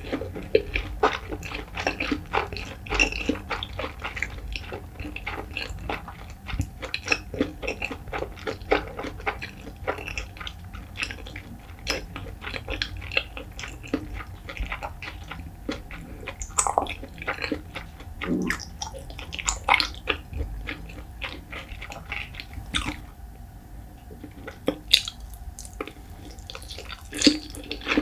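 Close-miked chewing of a soft mouthful of white rice and salted pollock roe: wet smacks and little mouth clicks in quick succession, easing off for a few seconds near the end before picking up again.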